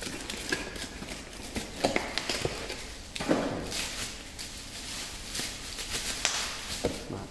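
Cardboard rustling and plastic bubble wrap crinkling as a packed battery is lifted out of its box and unwrapped by hand, with scattered sharp clicks and taps.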